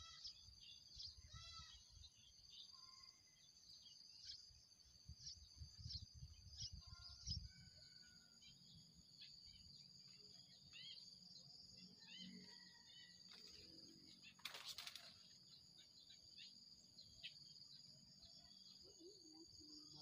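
Faint short bird chirps, frequent in the first several seconds and sparser after, over a steady high-pitched insect drone; a brief rustle about three-quarters of the way through.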